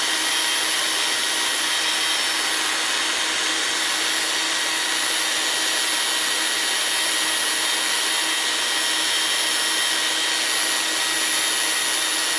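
Parkside PBSD 600 A1 belt sander running free with no workpiece, a steady whine over a hiss, while its belt tracking is checked.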